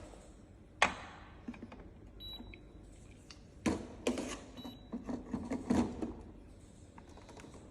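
Clacks and knocks of parts being handled on an espresso machine, the sharpest about a second in and around four seconds in, with two short high electronic beeps from the machine's controls.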